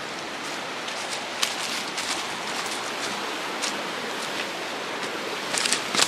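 Steady rush of river rapids, with footsteps crunching dry fallen leaves and snapping twigs on a forest trail; a quick cluster of crunches near the end.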